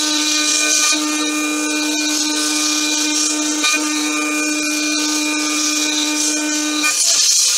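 Homemade CNC mill's spindle whining at a steady pitch as a 4 mm end mill cuts a metal wheel rim, with a high hiss of cutting over it. The whine breaks off about seven seconds in.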